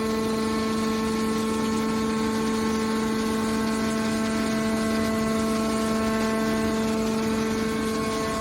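Hydraulic baler's pump motor running with a steady hum that does not change in pitch.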